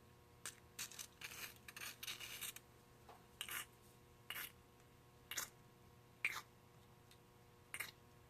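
Short scraping and rubbing noises from an old pneumatic impact wrench being handled: a quick irregular cluster at first, then single scrapes about once a second.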